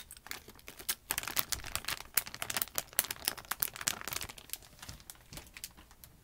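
Plastic crinkling and rustling as hands rummage among packaged items. The crackles come thick and fast for a few seconds, then thin out toward the end.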